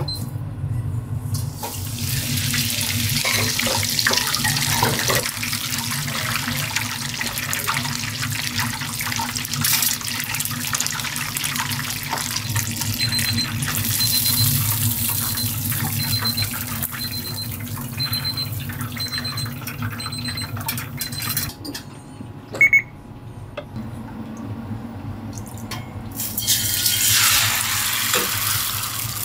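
Breaded shrimp deep-frying in a commercial fryer, a dense steady sizzle of bubbling oil. About halfway through, a digital kitchen timer beeps in short groups for several seconds. Near the end a fresh sizzle starts as liquid is poured into a hot wok on a gas burner.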